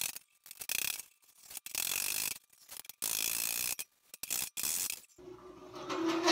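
Body file drawn in repeated rasping strokes across a bare steel fender, each stroke about half a second long with short gaps between them. This is metal finishing, done to show up the high and low spots in the panel. Near the end a longer scrape swells and carries a faint squeal.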